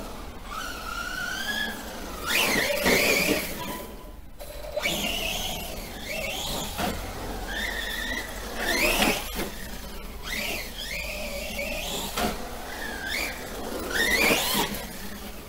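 Brushless electric motor of a Remo Hobby Dinosaurs Master 5 RC monster truck, run on 3S, whining and gliding up and down in pitch with the throttle. Several louder rising sweeps come as it accelerates.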